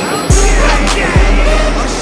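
Background music with a deep, heavy bass beat, a low hit landing about once a second under a melody.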